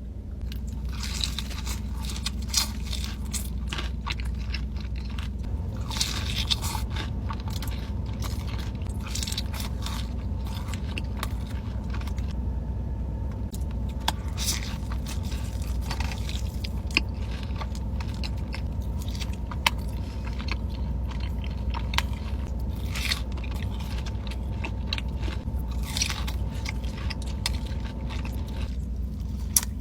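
Close-miked eating: crunchy bites and chewing with many sharp clicks and crackles, over a steady low hum.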